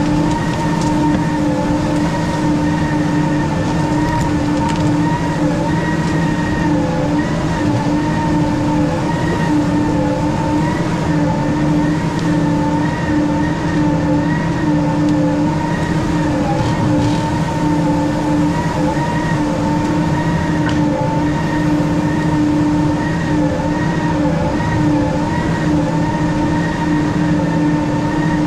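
Weiler S340 skidder's diesel engine and drivetrain running steadily while it drags a grapple load of logs: a constant low drone with a high whine above it that wavers slightly in pitch.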